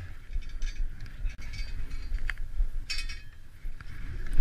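Dog sled running over a snowy trail: the runners scrape over the snow under a low rumble, with light clinks and rattles from the sled and a few sharp clicks.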